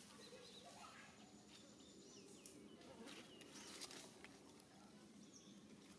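Near silence: faint outdoor ambience with a few soft, short high chirps and light clicks.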